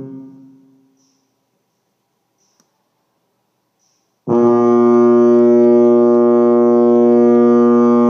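Ship's horn blasts: a long steady one dies away in the first second, then after about three seconds of silence another long, steady blast starts abruptly and holds.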